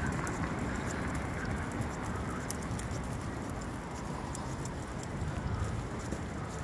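Footsteps of someone walking on a paved bridge, light irregular clicks over a steady low rumble.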